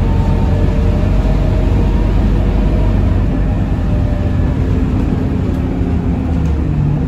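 Scania K230UB city bus's rear-mounted diesel engine and drivetrain running at steady cruise, heard from inside the passenger cabin: a continuous low drone with road noise and a faint whine.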